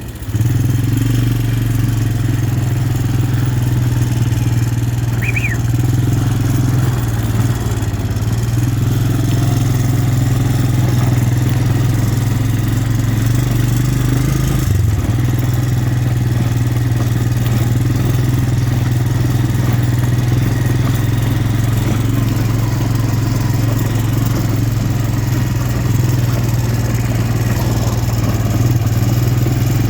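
A vehicle engine running steadily at an even speed, a constant low hum with no revving.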